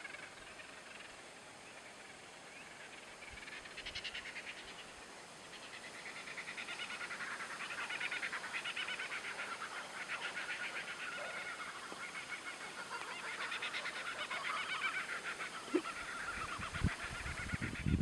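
Wild birds calling outdoors: a rapid, chattering chorus that builds up a few seconds in and stays busy, with a few short dull thumps near the end.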